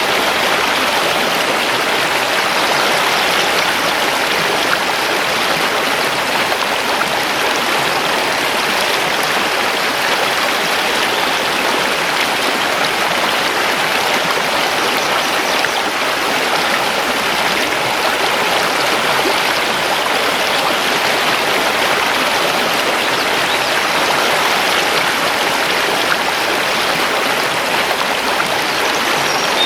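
Mountain river rushing steadily over stones.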